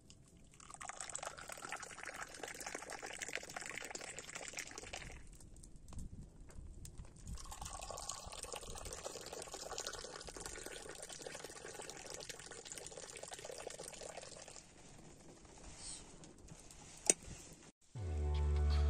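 Tea poured from a small metal teapot into a cup in a long stream, in two pours with a short pause between. A single sharp click near the end, then music begins.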